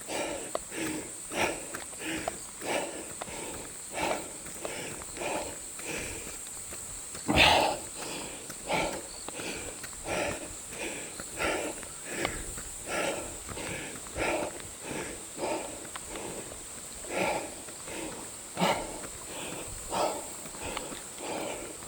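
A runner's hard, rhythmic panting while running uphill, roughly one breath every two-thirds of a second, with one louder gasp about seven seconds in.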